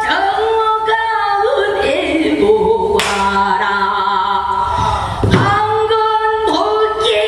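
Female pansori singer singing in long held notes that slide and waver in pitch. A single sharp knock, from the accompanying buk barrel drum, falls about three seconds in.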